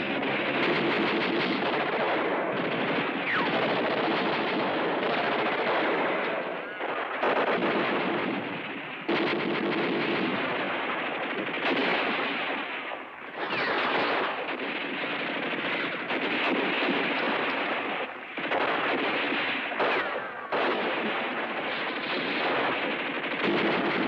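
Machine-gun fire, nearly continuous, with a few short pauses.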